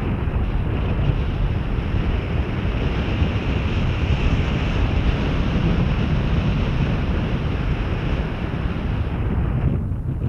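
Wind buffeting an action camera's microphone during paraglider flight: a steady, heavy rush of noise that eases briefly near the end.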